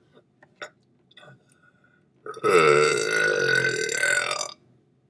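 A person letting out one long, loud burp lasting about two seconds, starting a little over two seconds in.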